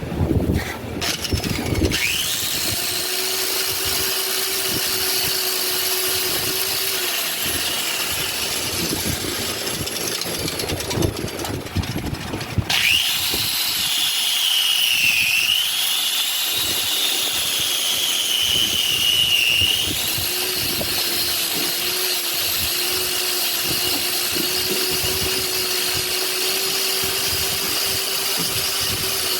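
Handheld electric power tool spinning up about two seconds in and running steadily, stopping and spinning up again near the middle; its whine dips in pitch and recovers a few seconds after the restart.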